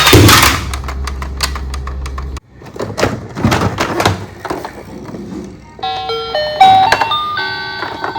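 Toy vehicles clicking and knocking as they roll, with a low hum that cuts off about two and a half seconds in. About six seconds in, a toy's electronic tune starts: a melody of beeping tones stepping up and down in pitch.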